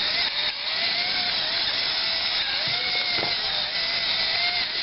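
Immersion (stick) blender running in a bowl of balsamic vinegar and olive oil, emulsifying a vinaigrette: a steady motor whine whose pitch wavers slightly as the load changes.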